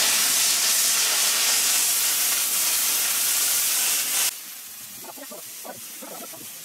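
Kärcher SG 4/4 commercial steam cleaner jetting steam onto a drum's hide head: a loud, steady hiss that cuts off suddenly a little over four seconds in.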